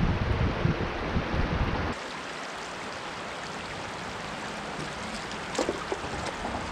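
Creek water running steadily over rocks. A low rumble sits under it for the first two seconds and stops abruptly, with a few light clicks near the end.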